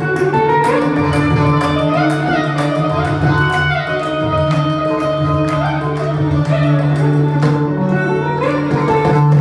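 Carnatic instrumental music: an electric mandolin plays gliding, ornamented melodic phrases with violin alongside, over mridangam strokes and a morsing, with a steady low drone underneath.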